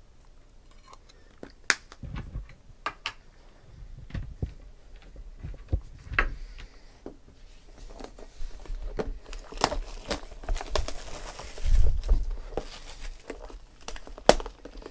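Cardboard trading-card hobby boxes knocking and sliding as they are handled, then plastic shrink wrap crinkling and tearing as a sealed box is unwrapped in the second half.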